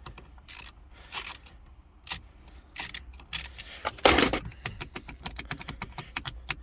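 Sharp metallic clinks, clicks and rattles of hand tools and small metal parts being worked at a minivan's steering column to free the ignition lock cylinder. The louder clanks come in a handful of separate strokes over the first four seconds, then a patter of small ticks follows.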